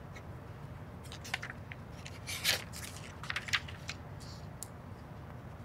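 Pen scratching on paper on a clipboard in a series of short, quick strokes as boxes on a form are ticked, the loudest stroke about two and a half seconds in.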